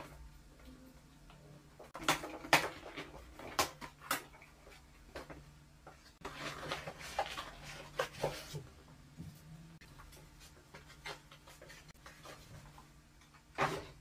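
Cardboard packaging being opened and unpacked: sharp knocks and taps of box flaps and inserts, and a stretch of scratchy rustling of packaging, with a loud knock near the end.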